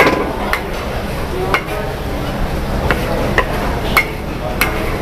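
Metal ladle stirring and scraping noodles in a large iron wok, knocking against the pan about six times at irregular intervals over a steady low rumble.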